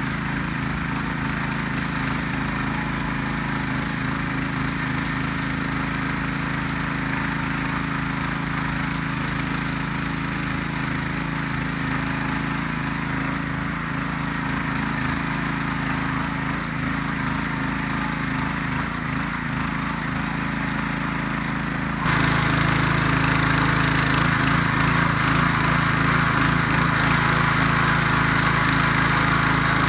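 Ruris DAC 7000 ACC2 motor hoe's engine running steadily under load as its tines till dry garden soil. About three quarters of the way through, it abruptly gets louder and stays louder.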